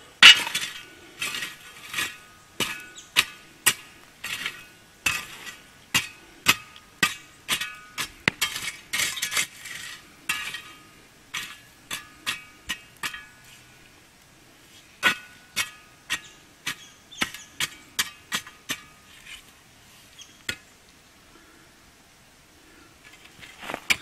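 A steel shovel stirring campfire coals and ash, its blade clinking and scraping against metal and stones with a short ringing note, about one or two strikes a second. The strikes stop about 20 seconds in, and a few more come just before the end.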